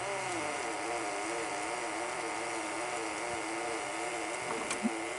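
Sony SL-100 Betamax deck's tape transport running in rewind: a steady motor hum whose pitch wavers up and down about twice a second, with a faint high whine. The rewind is slow and not normal, a fault the uploader puts down to bad leaking capacitors.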